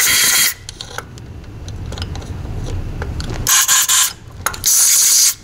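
Compressed-air blow gun hissing in three blasts as the cleaned Solex carburettor's passages are blown dry. One blast ends about half a second in, then two shorter ones come near the end. Between the blasts, the fume-extraction duct held over the carburettor gives a low rumble.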